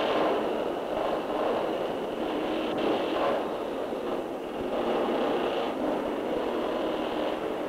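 Steady machinery noise from a large rubber-pad hydraulic press forming aircraft ribs and formers, heard on an old 1940s film soundtrack with little bass.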